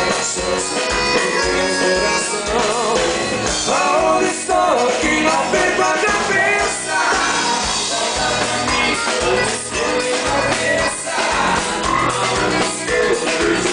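Live dance band playing with a singer over a steady drum beat.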